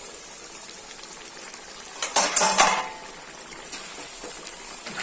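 A perforated metal ladle scraping and clattering against an iron kadai as thick chicken gravy is stirred, loudest for a moment about two seconds in, over the steady hiss of the gravy cooking on the flame.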